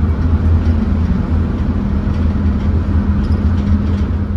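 Car cabin noise at motorway speed: a steady, loud rumble of tyres and engine with a low, even hum.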